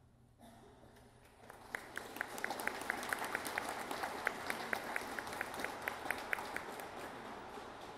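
Audience applauding, building up about a second and a half in and tapering off near the end. One person clapping close by stands out as sharp, even claps at about four a second.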